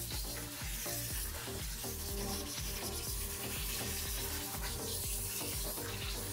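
Water spraying from a handheld shower head onto a dog's soaked coat, a steady hiss, with background music over it.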